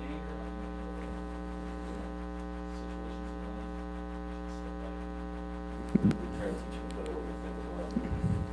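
Steady electrical mains hum, a low buzz with a stack of evenly spaced overtones, with a brief bump about six seconds in.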